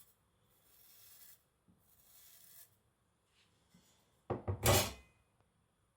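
Thin Chinese cleaver blade shaving arm hair in two faint, short scraping strokes, a sign the edge is very sharp. About four seconds in comes a brief, much louder clatter of knocks and rubbing.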